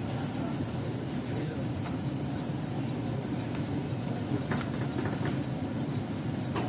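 Steady low background rumble, with a few faint light clicks, the clearest about four and a half seconds in.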